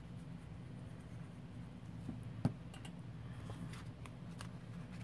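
Quiet paper-crafting handling sounds over a steady low hum: a single sharp tap about halfway through, a smaller one just before it, then faint ticks and light paper rustling as a paper strip and a grid-paper tag are handled.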